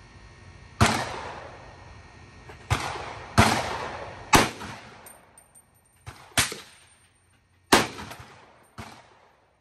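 Ruger SFAR semi-automatic rifle firing: about eight sharp shots at an uneven pace, a second or two apart, some loud and some fainter, each followed by a short ringing decay.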